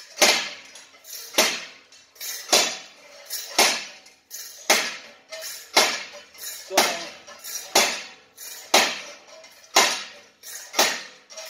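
A 15½–16-pound sledgehammer head on a home-built lever striking rig hits a steel bar on an anvil block. It lands about once a second, each blow a sharp metallic clang that rings briefly.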